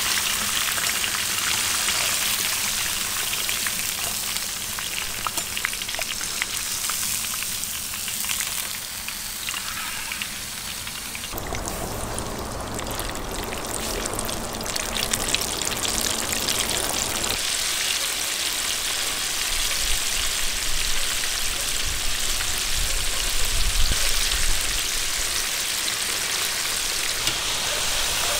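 Liver pieces deep-frying in hot oil in a cast-iron kazan: a steady sizzle full of fine crackles and spatters, with the texture shifting about eleven seconds in.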